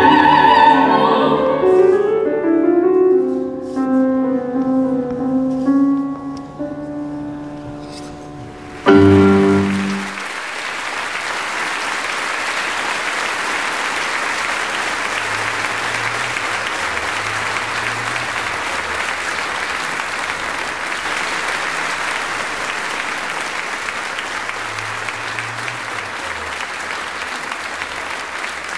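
Operatic choral music with piano, fading and ending on one loud final chord about nine seconds in. Then a long, steady round of audience applause.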